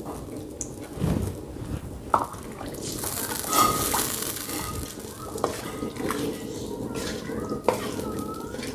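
Wooden spatula stirring a thin coconut-milk sauce in a metal wok, with wet sloshing and scrapes and knocks of the spatula against the pan now and then.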